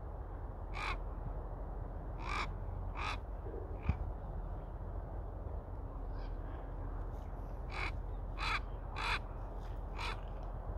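Common raven calling: a string of about eight short calls in two bunches, three or four in the first few seconds and four more in the second half, over a steady low rumble. One brief knock about four seconds in.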